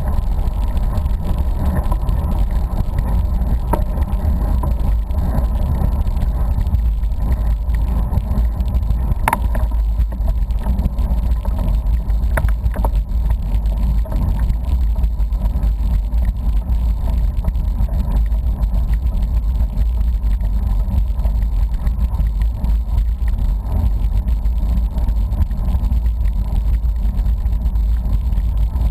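Wind buffeting the microphone of a camera riding along on a road bicycle, a steady low rumble mixed with tyre and road noise, with a few brief clicks.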